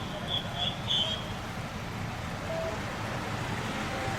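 Steady street background with a low vehicle rumble; a few short high chirps in the first second.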